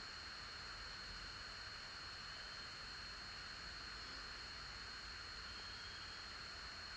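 Faint, steady hiss with a thin, constant high-pitched tone running through it; nothing starts, stops or changes.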